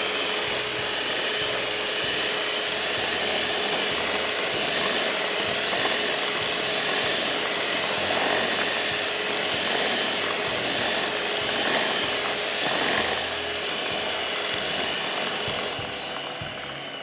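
Electric mixer running steadily with a faint whine, whipping cold whipping cream towards medium peaks. The motor slows and stops about a second before the end.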